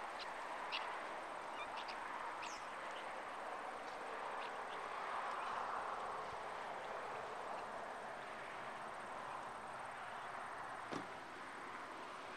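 Steady outdoor background hiss with a few short, soft chirps from a foraging guinea fowl flock in the first three seconds, and a single click about eleven seconds in.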